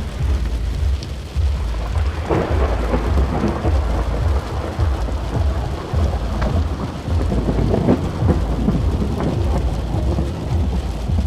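Rainstorm: heavy rain falling steadily with a continuous low, fluctuating rumble underneath.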